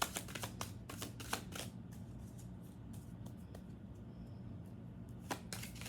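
Tarot cards being shuffled and handled: a quick run of card flicks and slaps for the first couple of seconds, a quieter stretch of faint handling, then more flicks near the end.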